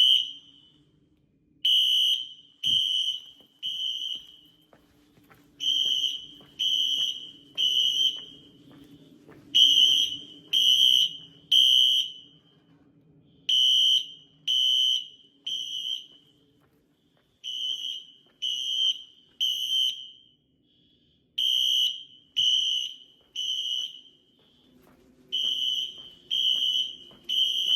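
Fire alarm horns sounding the temporal-3 (code 3) evacuation pattern: three short high-pitched blasts, a pause, then again, about every four seconds. This is the standard signal for building evacuation.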